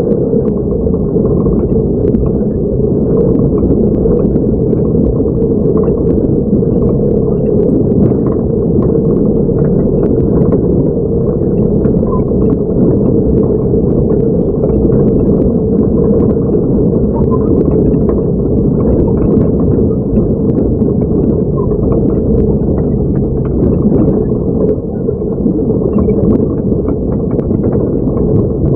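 Truck engine running steadily, heard from inside the cab as the truck crawls along a rough dirt track, with scattered light knocks and rattles.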